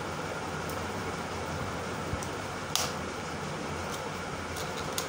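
Steady hum of an electric fan running in a small room, with one sharp click nearly three seconds in and a few faint ticks near the end.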